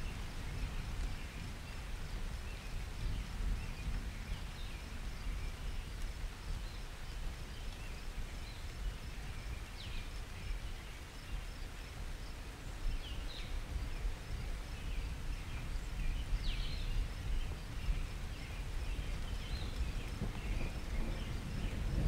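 Outdoor ambience: a steady low rumble under scattered short, high bird chirps.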